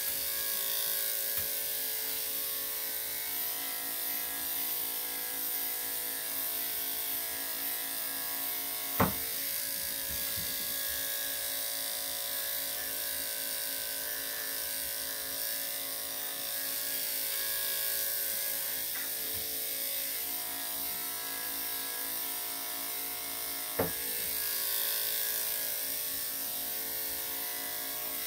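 Corded electric dog clippers running steadily as they are worked through a dog's coat, a constant motor hum with a high hiss. Two short sharp clicks stand out, one about a third of the way in and one near the end.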